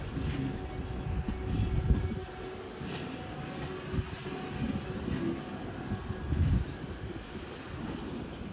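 A train running on the track: a steady low rumble, with heavier knocks about two seconds in and again about six and a half seconds in.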